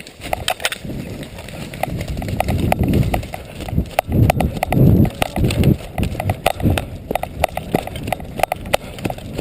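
An airsoft player moving fast on foot: heavy footfalls and thuds of gear and camera handling, strongest a couple of seconds in, with many sharp clicks scattered throughout.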